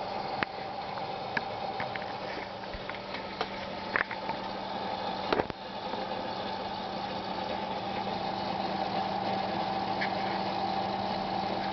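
Seagate Barracuda 5400 rpm SATA hard drive running with a steady low hum and a higher whine, over which come scattered irregular clicks, the sharpest a little over five seconds in. This is the strange noise the drive has lately developed, although it tests as healthy in software.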